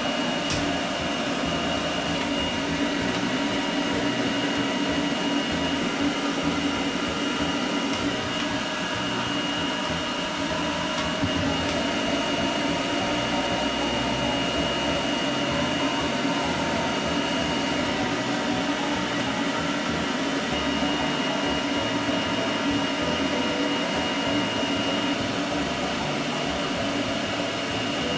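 Pet grooming blow dryer running steadily, forcing air through its hose onto a wet, freshly shampooed toy poodle's coat: an even rush of air with a steady high whine.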